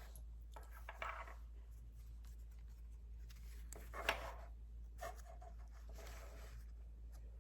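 Faint rubbing and rustling with a few light taps as the handmade book with its brass and paper parts is handled, over a low steady hum.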